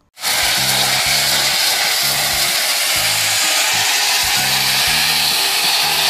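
Steady rushing hiss of gravel pouring off the tipped bed of a dump truck, with a low hum that comes and goes underneath.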